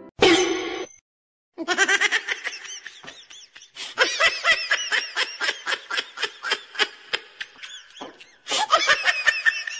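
Someone laughing hard in a long run of quick, high-pitched laughs, with a short break about a second in and another near the end.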